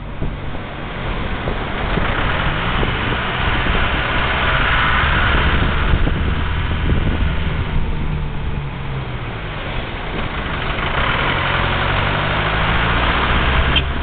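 Car engine and road noise while driving through town traffic. The engine note rises and falls in pitch, and the road noise swells twice, around the middle and again near the end.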